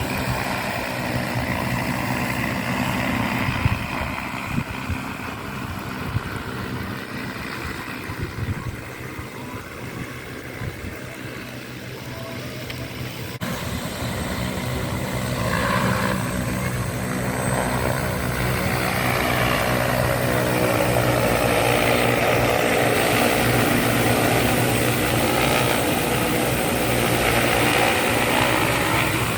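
Agricultural crop-spraying drone's rotors humming steadily. The hum grows louder about halfway through as the drone comes closer.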